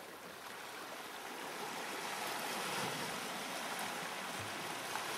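Strong ocean current rushing past shoreline rocks, a steady rush of moving water with splashing, growing a little louder over the first couple of seconds.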